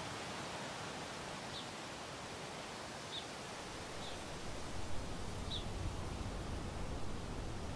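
Wind hissing steadily over open bush, with low wind buffeting on the microphone from about three and a half seconds in. A bird gives short high chirps every second or two.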